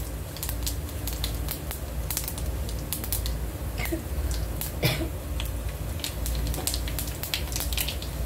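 Cumin seeds, garlic and dried red chillies crackling in hot oil in a small non-stick pan as a tadka tempering: dense, irregular sharp pops over a low steady hum.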